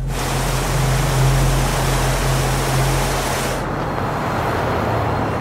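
Border Patrol truck driving over a dirt track: a steady low engine hum under a loud rushing noise, which turns duller about three and a half seconds in.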